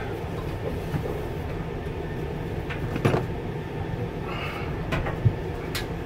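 A steady low rumble with a few sharp knocks and clunks, about three seconds in and again near the end, from handling the large sheet-metal drum just slid out of a clothes dryer.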